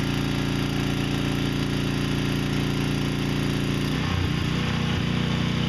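Troy-Bilt 6000-watt portable generator's engine running steadily under a heavy load of about 29 amps. About four seconds in, its note wavers and then settles to a new steady pitch.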